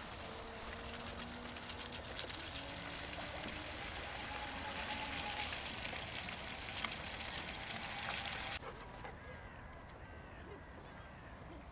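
Tramper TWS electric off-road mobility scooter driving through a muddy puddle: its wet tyres give a steady hiss of water and mud over a faint motor whine, growing louder as it comes closer. The sound drops suddenly about eight and a half seconds in to a quieter stretch.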